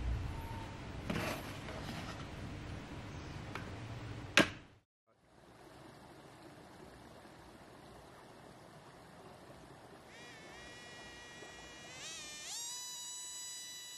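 Handling and rubbing noises of a small plastic model boat, ending in a sharp click about four seconds in. After a brief silence there is faint outdoor background, then from about ten seconds the buzzing whine of the boat's coreless motor spinning its air propeller; it jumps up in pitch near the end and then holds steady as the motor throttles up.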